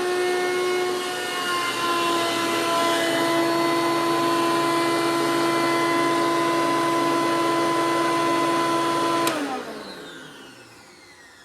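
2003 Hoover Caddy Vac's original motor running with a steady whine, then switched off with a click about nine seconds in and winding down, its pitch falling as it coasts to a stop.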